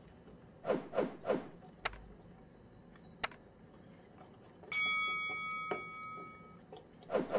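A small whisk scraping and clicking against a ceramic bowl: three quick strokes about a second in, then a couple of light clicks. Midway through, a bell-like chime sound effect rings out and fades over about two seconds.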